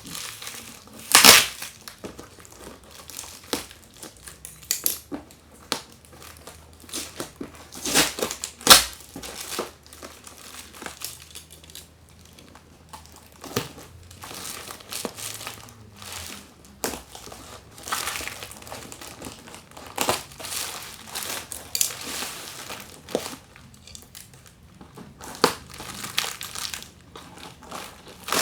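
Packaging around a spool of fiber optic cable being handled: crinkling and rustling with scattered knocks, the loudest about a second in and twice around eight seconds in.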